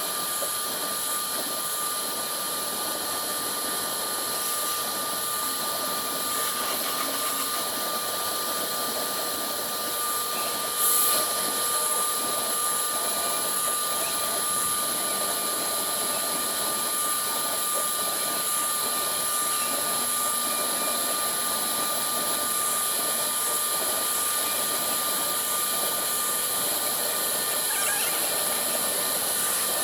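Single-head woodworking CNC router engraving MDF, its spindle running with a steady high whine over the hiss of the cutting, and one brief sharp knock about eleven seconds in.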